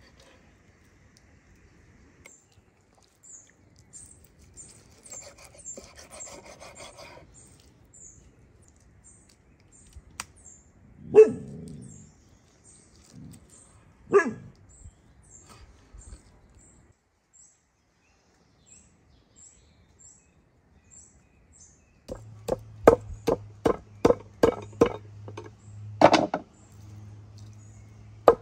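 Raw beef being cut on a wooden chopping board: quiet knife work with two sharp knocks near the middle, then a cleaver chopping the meat against the board in a quick run of about three chops a second near the end. Birds chirp in the background.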